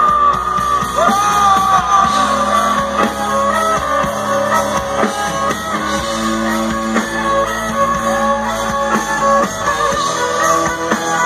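Live band playing on a festival stage, with guitars, drums and keyboard through the PA, and singing voices carrying a gliding melody over it, heard from within the crowd.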